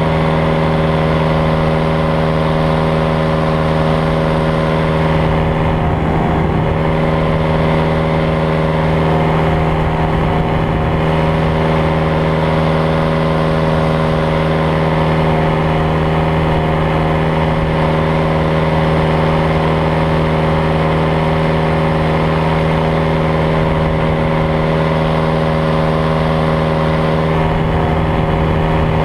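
Powered paraglider's engine and propeller droning steadily at cruise throttle in flight.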